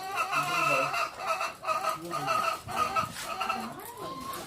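Caged laying hens clucking and squawking in a quick run of repeated calls, loudest in the first second and again about three seconds in, with a rising call near the end.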